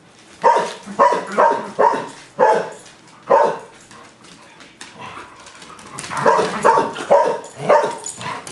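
A dog barking in short, sharp play barks during rough play with another dog. There are about six barks in the first few seconds, a lull, then a quicker run of barks near the end.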